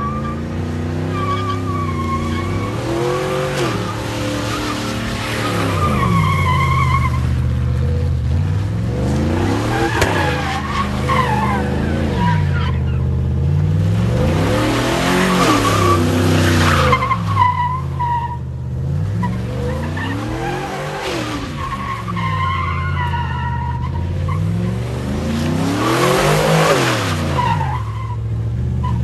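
A car engine revving hard over and over, its pitch climbing and dropping every few seconds, while the tyres squeal and spin as in a burnout or donuts.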